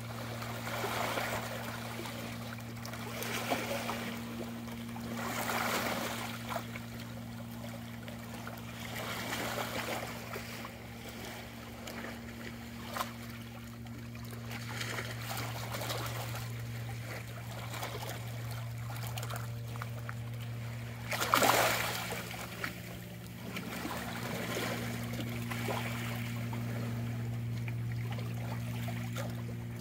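Small bay waves lapping and trickling against shoreline rocks in irregular washes every few seconds, with the biggest splash about two-thirds of the way in. A steady low hum runs underneath.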